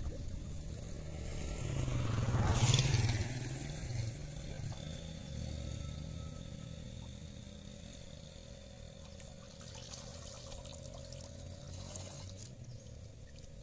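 Air bubbles from a diver under water rising and breaking at the surface in a gurgling rush, loudest about three seconds in, then water sloshing as he surfaces near the end. A low steady hum runs underneath.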